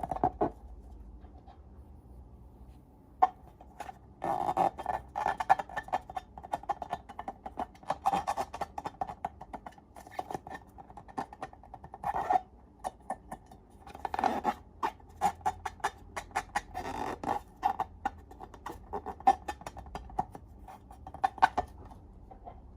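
Sticky slime being squished and worked by hand, giving irregular bursts of wet crackles and clicks.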